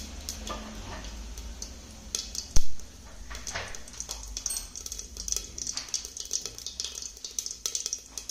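Cumin seeds crackling in hot ghee in an aluminium pressure cooker: irregular small pops and ticks as the seeds splutter, with one much louder sharp crack about two and a half seconds in.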